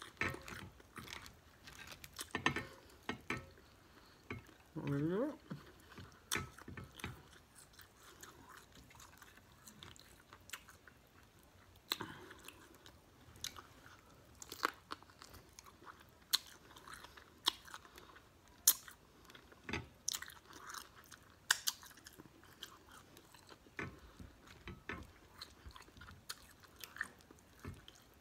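Boiled crawfish being broken apart and peeled by hand and eaten: irregular sharp cracks and clicks of shell, with chewing and biting. There is a short vocal sound about five seconds in.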